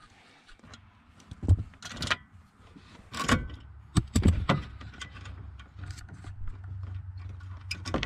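Scattered metallic clicks and knocks of hand tools and hands working under a pickup's dashboard. From about four seconds in, a steady low rumble runs underneath.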